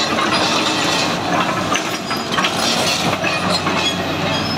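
Hitachi ZX210 hydraulic excavator travelling on its steel crawler tracks: the track chains clank and rattle steadily over the running diesel engine.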